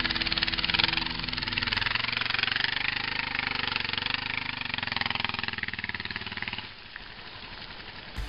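Motorcycle engine running as a large dual-sport bike rides off along a muddy track, with a steady pulsing note. It drops away sharply near the end.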